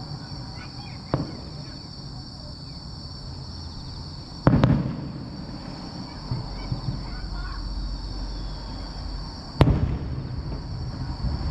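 Aerial firework shells bursting: a light pop about a second in, then two heavy booms about five seconds apart, each trailing off.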